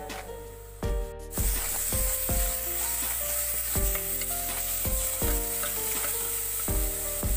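Vegetables and spices sizzling as they fry in an aluminium pot and are stirred, starting just after a second in, over background music with a steady beat.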